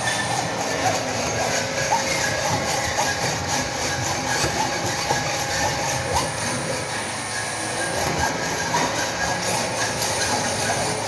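Machine shop noise of metal being worked: a steady hiss and high whine with many short, irregular metal squeals.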